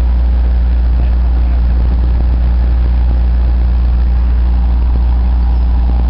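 A vehicle engine running steadily, a loud, even low drone with no change in speed.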